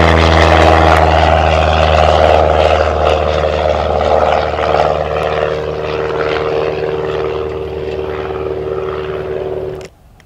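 Cessna 172 single-engine piston airplane climbing out after takeoff: a steady engine and propeller drone that slowly fades as it pulls away, then cuts off abruptly near the end.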